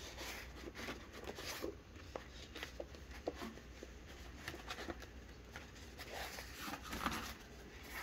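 Quiet handling noise: paper instruction sheets rustling, with scattered small clicks and taps as things are moved about in a hard plastic pistol case.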